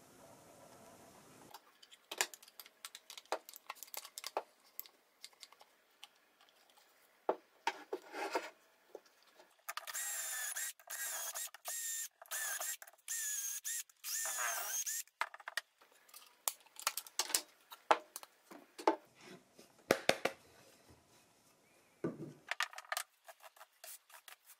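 Cordless drill boring dowel holes through the steel guide of a dowelling jig into a 2x6 board. It runs for about five seconds in several short bursts, its whine dipping as it slows near the end. Sharp clicks and knocks of the jig and bar clamp being handled come before and after.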